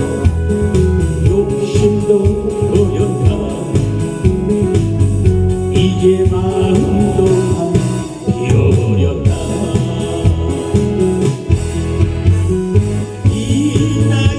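Korean trot song with a steady beat and a melody line running over it.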